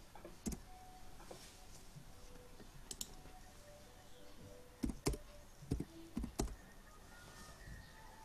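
Irregular clicks and taps on a computer keyboard, scattered at first and bunched in a run of several about two-thirds of the way through.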